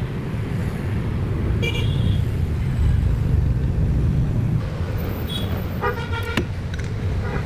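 Steady low rumble of running engines and road traffic, with short vehicle-horn toots about two seconds in and again around five to six seconds in.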